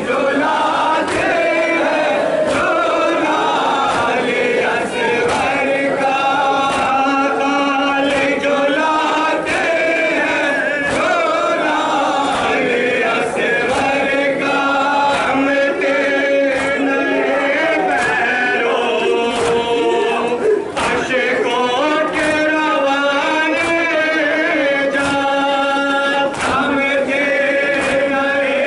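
A crowd of male mourners chanting a Shia lament (noha) together in long held notes, over a sharp, steady beat of about one and a half strikes a second.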